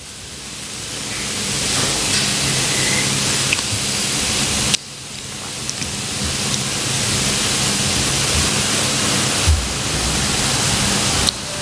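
Steady hiss of recording noise with a faint low hum. The hiss swells gradually, drops off abruptly about five seconds in and again near the end, then swells back. A few faint clicks sound in between.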